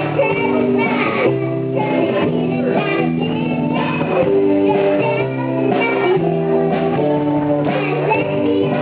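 Children's band playing a praise and worship song live: drums, keyboard and electric guitar under a group of children singing.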